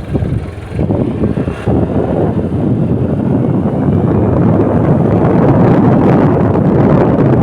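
Steady low rumble of road traffic, growing louder over the first few seconds and then holding.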